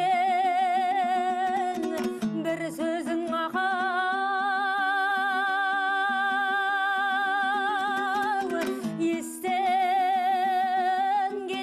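A woman singing a Kazakh folk song in long held notes with wide vibrato over a plucked string instrument, pausing briefly between phrases about two and nine seconds in.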